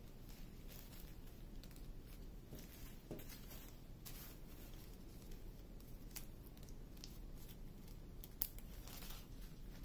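Faint rustling and crinkling of small plastic zip bags of diamond painting drills being handled and opened, with scattered light clicks and one sharper tick about eight seconds in.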